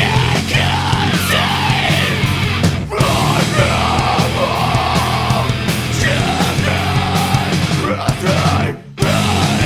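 Metalcore song playing: heavily distorted guitars and drums with yelled vocals. The band stops briefly near the end and then comes back in.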